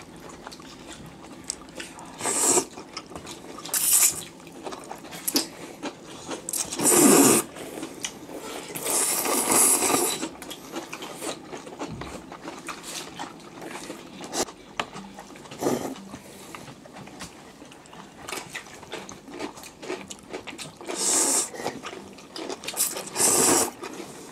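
A person slurping jjamppong noodles from a bowl of spicy seafood noodle soup. About six noisy slurps come in short pulls, the longest about a second, with quiet chewing and soft ticks in between.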